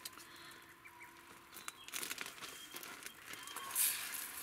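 Plastic zip bag crinkling and crackling as hands open it and squeeze out food that has frozen stiff, in irregular rustles with the loudest crackle near the end.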